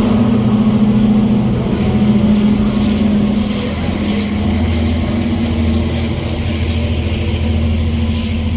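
A motor engine running with a steady, close drone whose pitch dips and rises slightly.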